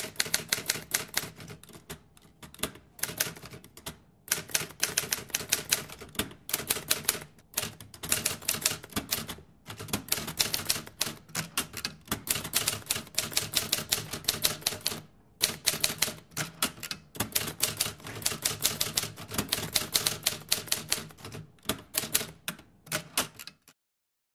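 Typing sound effect: rapid key clicks in runs broken by short pauses, keeping time with caption text appearing letter by letter, and stopping suddenly near the end.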